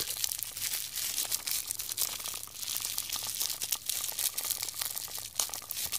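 Crinkling and rustling of plastic packaging as it is handled and pulled at by hand, with irregular crackles throughout.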